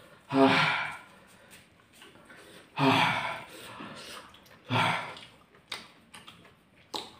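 A man's wordless breathy groans, three of them a couple of seconds apart, as he reacts to the burn of very hot chilies.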